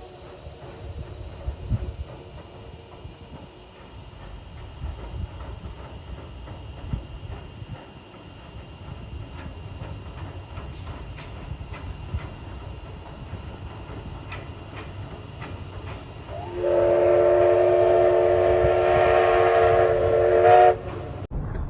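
Steam locomotive running past with a low rumble. Near the end it sounds its steam whistle in one long blast of several tones at once, lasting about four seconds.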